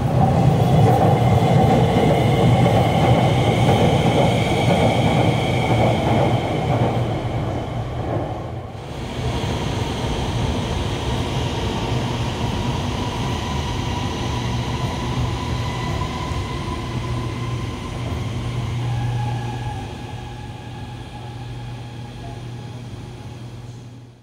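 Guangzhou Metro trains running on elevated track, with wheel rumble and the whine of the traction motors. The first train is loudest as it passes close by. Around nine seconds in the sound changes to a steadier run with different whining tones, and it fades out at the end.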